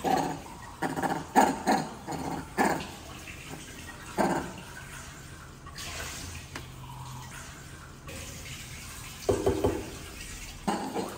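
A baby macaque's short crying calls, several in the first three seconds, one about four seconds in and a few more near the end, over water running from a kitchen tap.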